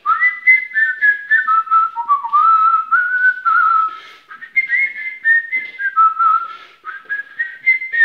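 A man whistling a short melody in two notes at once (polyphonic whistling): two pitches sound together and move from note to note, with breathy air noise around them.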